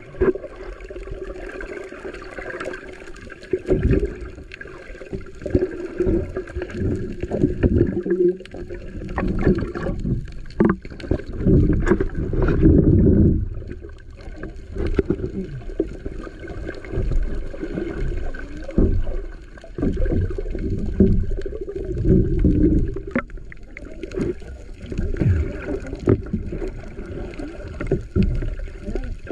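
Muffled underwater sound from a submerged camera: irregular surges of moving water and scattered knocks, over a steady faint hum.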